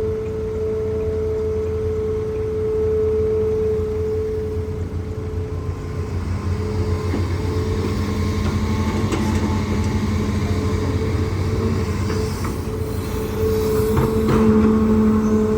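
Hitachi ZAXIS200 hydraulic excavator running, a steady diesel engine hum under a high whine that fades midway and returns near the end. From about halfway in come scraping and knocks of the bucket working rock.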